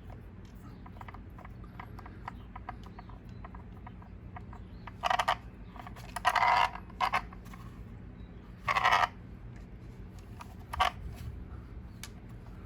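Small plastic and metal handling clicks from work on an RC truck's driveshaft. About five short, raspy creaks come between them, typical of a screw being driven in and cutting its own threads in a plastic part.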